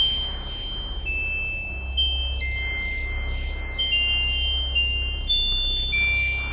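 A sound-art soundtrack of high, chime-like tones struck one after another and left ringing. They sit over a low steady drone and a hiss that swells and fades about twice a second.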